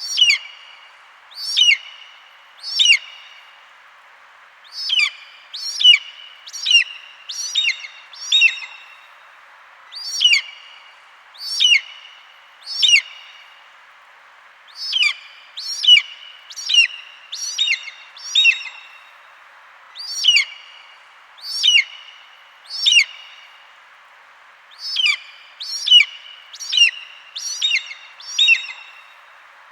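An eagle calling: short, shrill cries that each drop quickly in pitch. They come in alternating sets of two or three spaced calls and quicker runs of five or six, over a faint steady hiss.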